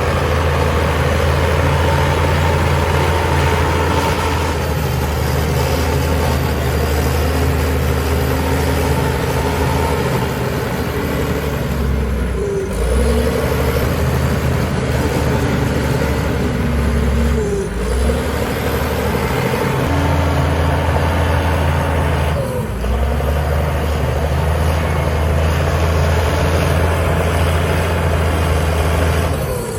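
Heavy diesel engines of earthmoving machinery, dump truck and bulldozer, running steadily with a deep drone, broken by a few brief drops.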